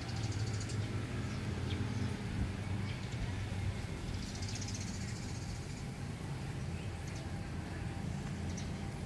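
Outdoor ambience: a steady low hum with small birds chirping now and then, and a brief high trill about four seconds in.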